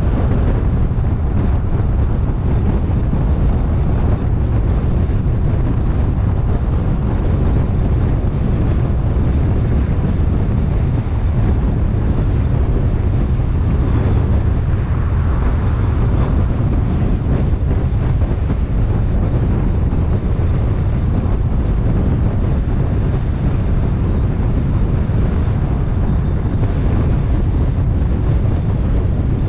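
Steady road and wind noise from a car driving at highway speed: a loud, even low rumble with wind rushing over the microphone.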